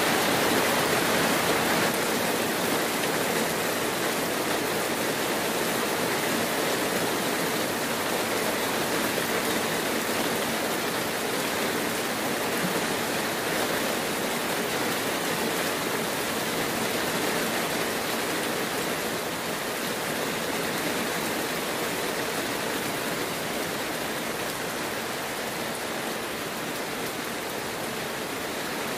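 Heavy rain falling steadily in a dense, even hiss, growing a little quieter toward the end.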